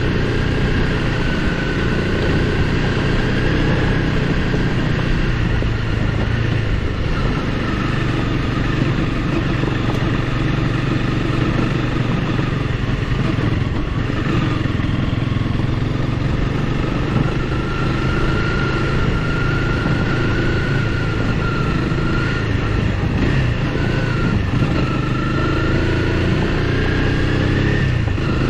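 Honda CRF300L Rally's single-cylinder engine running steadily at low speed on a dirt road, its pitch rising and falling slightly with the throttle.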